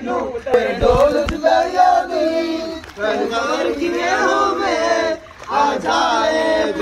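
A group of men singing together in unison, in long drawn-out phrases, with a brief pause a little after five seconds in.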